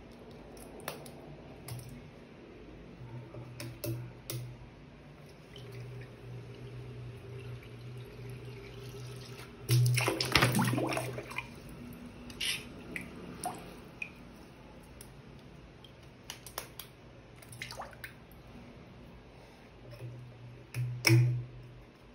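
Water-filled balloons handled over a sink basin: water dripping and splashing, with a loud burst of splashing about ten seconds in, when a filled balloon lands in the basin, and another shorter burst near the end.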